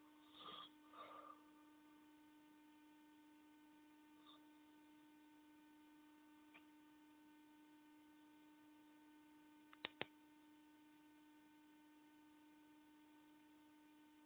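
Faint steady electrical hum, with two brief noises in the first second and a half and two sharp clicks close together about ten seconds in.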